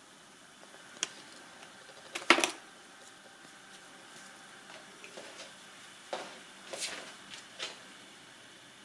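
Handling noises: a sharp click about a second in, a louder rustle and clatter about two seconds in, and a few more clicks and rustles near the end.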